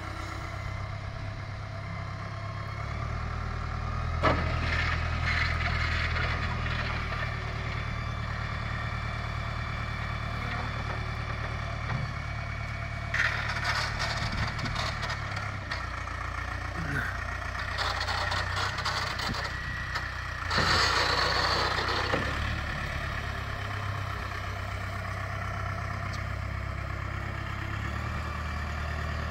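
Engine of an O&K A40 rough-terrain forklift running steadily. Three times it gets louder, with a higher whine and a clunk, as the hydraulics raise and lower the mast and forks.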